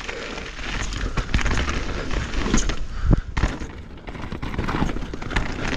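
2023 Norco Fluid full-suspension mountain bike on Maxxis Assegai tyres riding down a rocky dirt trail: tyres crunching over dirt and stones and the bike clattering over bumps, under a heavy rumble of wind on the camera microphone.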